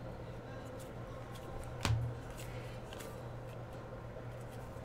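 A stack of glossy basketball trading cards being handled and slid through by hand: soft scattered card clicks, with one sharper snap about two seconds in. A low steady hum runs underneath.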